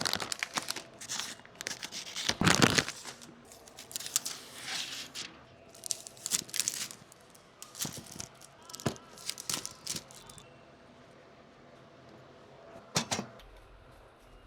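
Hands handling PC parts and their packaging: crinkling and tearing of plastic or paper with small clicks and knocks, in a string of short rustles. The loudest rustle comes about two and a half seconds in, then it goes quieter with one last rustle near the end.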